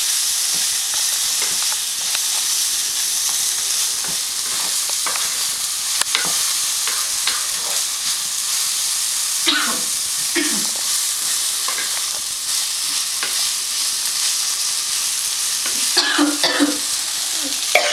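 Okra frying in oil with a steady sizzle, stirred by hand with a spatula that scrapes and clicks against the pan.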